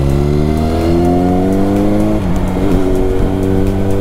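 Kawasaki Ninja ZX-6R's inline-four engine accelerating, rising in pitch, then dropping suddenly about two seconds in as the rider shifts up a gear, and running steadily after the shift.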